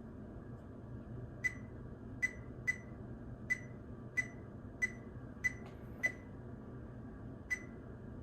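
Nine short, sharp, high-pitched clicks at uneven intervals from buttons pressed on a handheld audio recorder while stepping through its menu to change a setting. A steady low hum runs underneath.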